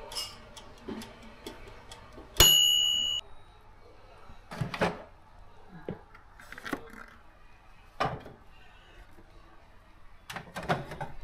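An electric food steamer gives a single loud, high electronic beep lasting just under a second, a few seconds in. Clatters of its clear plastic lid and tiers being lifted and handled follow at intervals.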